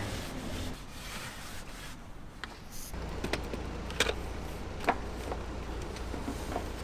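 Wooden disposable chopsticks clicking as they are handled and set upright into a holder: a few light, sharp clicks, the clearest about four and five seconds in, over a low steady hum.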